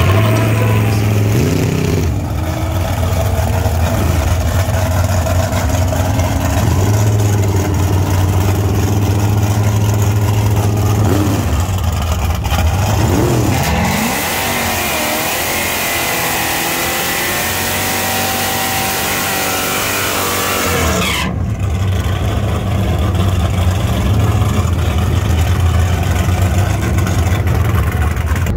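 Naturally aspirated 454-cubic-inch LS Warhawk V8 in a drag-race pickup, running loud and being revved, its pitch rising and falling about halfway through. Then it is held at high revs for several seconds under a dense hiss of spinning rear tyres in a burnout.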